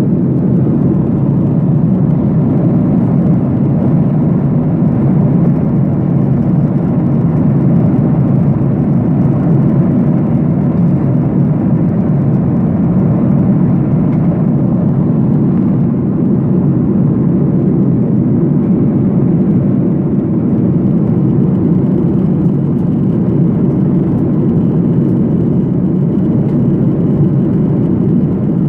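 Airliner cabin noise: a steady, loud, low rumble of engines and airflow heard from inside the passenger cabin, unchanging throughout.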